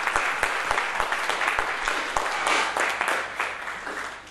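An audience clapping: a roomful of people applauding, dying away near the end.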